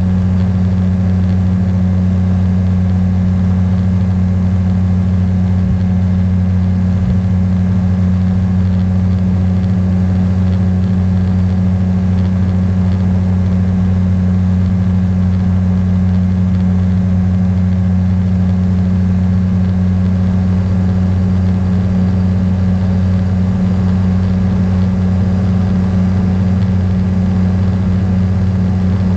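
Beaver RX 550 ultralight's engine and propeller running steadily in flight: an even, deep drone that holds one pitch throughout.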